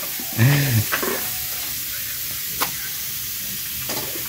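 Food sizzling in a hot frying pan as it is stir-fried, a steady hiss, with one sharp click about two and a half seconds in.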